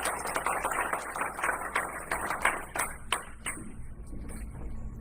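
Audience applauding, thinning out to a few scattered claps a little after three seconds in.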